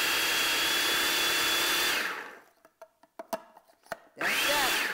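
Hamilton Beach food processor pulsed to chop cauliflower into rice. The motor and blade run with a steady whine, cut off about two seconds in and wind down, a few light clicks follow, and a short second pulse spins up near the end.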